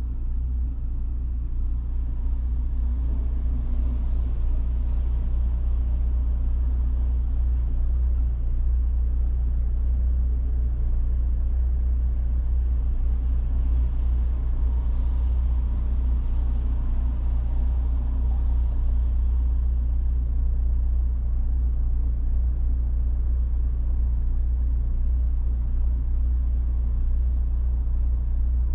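Steady low rumble of a car driving along city streets: engine and tyre noise, with a little more road hiss around the middle.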